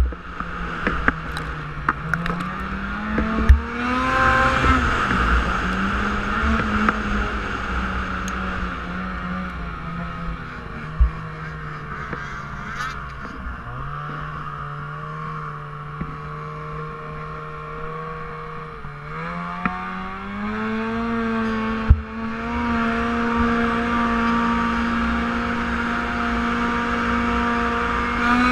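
Snowmobile engine running under varying throttle, its pitch rising and falling, dropping low about halfway through, then climbing and holding high through the last third as the sled heads uphill. A few sharp knocks come from the sled jolting over chunks of snow.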